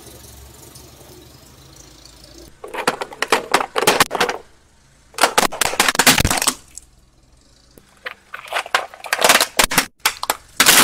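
Car tyre crushing hard plastic objects, among them a red plastic egg carton: crackling, snapping plastic in four bursts of a second or so each, with short quiet gaps between them.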